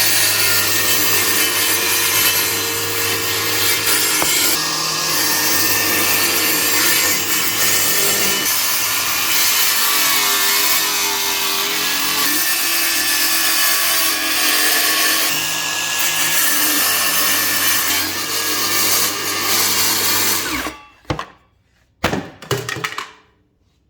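Mini cordless circular saw running and cutting, a continuous high-speed motor and blade noise that stops abruptly about twenty seconds in, followed by a few short knocks.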